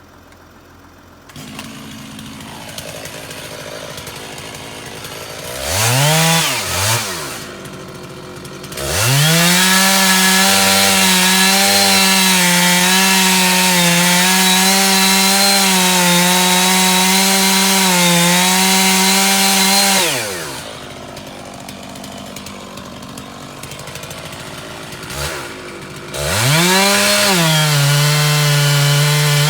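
Two-stroke chainsaw idling, revved briefly twice, then run at full throttle cutting into a basswood trunk for about ten seconds, its pitch dipping slightly under load. It drops back to idle, then is throttled up to cut again near the end.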